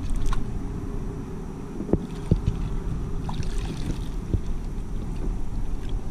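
A fish being landed from a kayak: water splashes and drips off a mesh landing net as it is lifted out, with a few sharp knocks against the plastic hull, over a steady low rumble of wind on the microphone.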